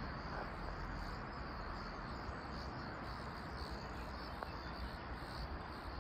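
Insects, most likely crickets, chirring in a steady pulsing high-pitched trill, over a low steady rumble of outdoor background noise.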